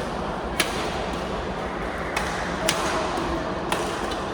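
Basketball game in a gym: four sharp ball impacts on the court over a steady crowd hubbub.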